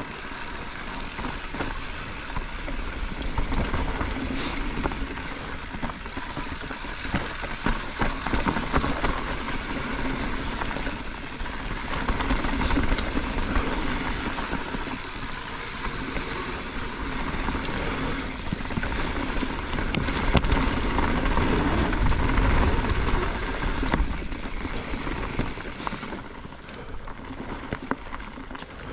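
Mountain bike descending fast over a rocky, leaf-covered dirt trail: tyres rolling over gravel and stones with constant rattling and clattering from the bike over the bumps, and heavy low rumble, swelling and easing as the speed changes.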